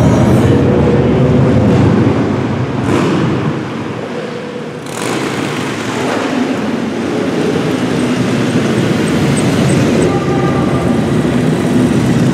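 A group of motorcycles riding slowly past under a stone arch, several engines running at low speed. There is a brief lull about four seconds in, then more bikes pass.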